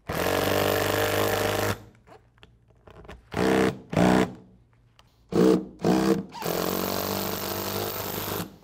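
Makita cordless driver with a socket spinning nuts down onto the bolts of a bolt solid plate belt fastener, tightening them to compress the plates. It makes a steady run of nearly two seconds, then four short trigger bursts that rev up and die away, then a second steady run of about two seconds near the end.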